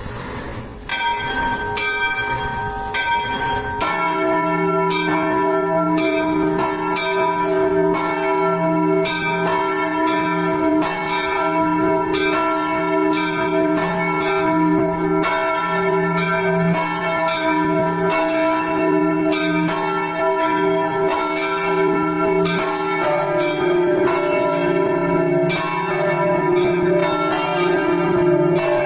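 Church bells ringing, several bells struck one after another in quick succession so their tones overlap. The ringing is lighter over a low rumble at first, then swells into a full, dense peal about four seconds in.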